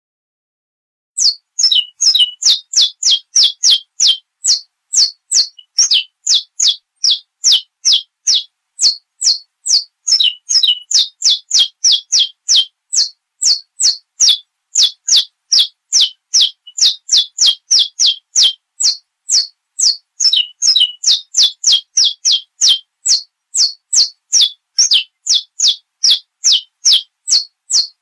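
Saffron finch singing: a long run of sharp, high notes, each sliding down in pitch, about two or three a second, starting about a second in.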